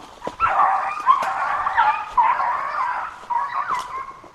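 A pack of deer hounds baying in long, overlapping, wavering howls, the sound of hounds running a deer on a dog drive. A few sharp clicks sound over the baying.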